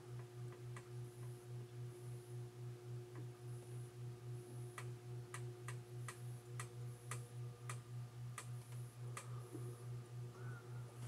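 Toaster oven running during reflow soldering: a low electrical hum that pulses several times a second, with sharp, irregular ticks of the oven's hot sheet metal that come more often from about four seconds in.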